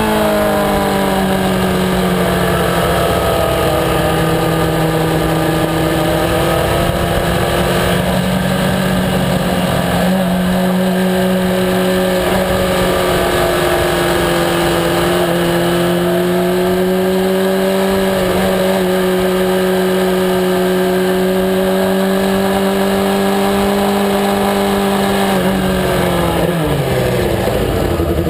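Onboard sound of a sport motorcycle's engine running steadily at moderate revs at low road speed, with wind noise over the microphone. Near the end the engine note drops as the throttle is closed and the bike slows.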